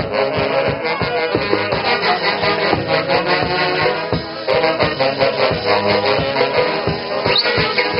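Andean dance band music from the Huancayo region playing with a brisk, steady beat.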